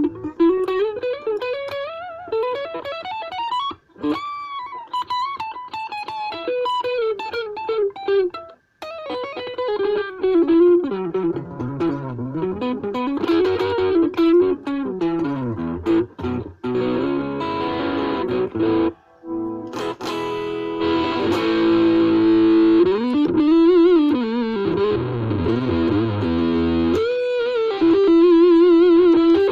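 Ibanez RG350DX electric guitar played through a Vox Soundbox Mini amp: quick single-note melodic runs with string bends and vibrato, and a few held notes, broken by a few short pauses.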